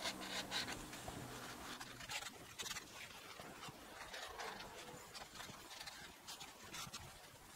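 A cloth rubbing over the oily metal gasket face of a lathe's threading gearbox, cleaning off the oil so silicone sealant will adhere. It is faint, a run of irregular scuffs and light taps.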